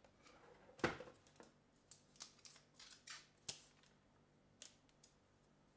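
Faint handling noise as an Amazon Echo Plus speaker is lifted out of its cardboard box: a sharp knock about a second in, then a series of lighter clicks and scrapes of the device against the packaging.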